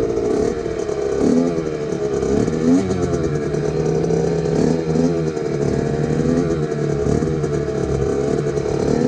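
Small kick-start motorcycle engine idling, with a few short throttle blips that rise and fall in pitch.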